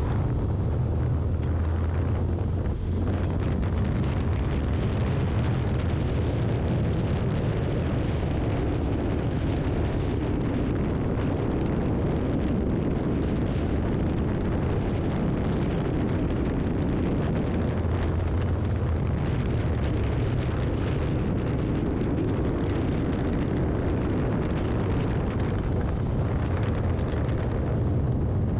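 Steady wind rush buffeting an action-camera microphone on a motorcycle riding at highway speed, with the bike's engine and road noise as a low drone underneath.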